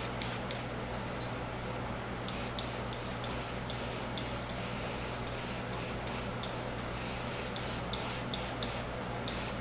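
Airbrush spraying paint in short bursts of hiss as the trigger is worked on and off: a few bursts at the start, then a quick run of them from about two seconds in. Under it is the steady low hum of the air compressor.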